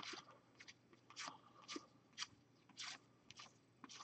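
Faint, crisp swishes of trading cards being slid one by one off a stack held in the hand, about one every half second.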